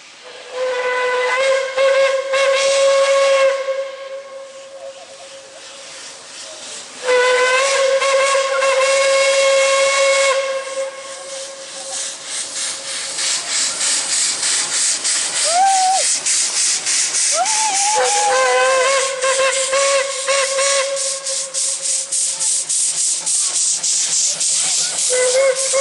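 Puffing Billy narrow-gauge steam locomotive's whistle blown in long blasts: once at the start, again after about seven seconds, again about two-thirds through, and once more at the very end. From about halfway through, the locomotive's exhaust chuffs in an even rhythm under the whistle.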